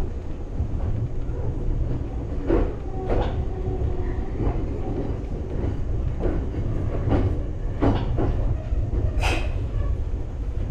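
Electric train heard from the cab as it slows into its terminus: a steady low running rumble with irregular clacks of the wheels over rail joints and pointwork, the sharpest knock about nine seconds in.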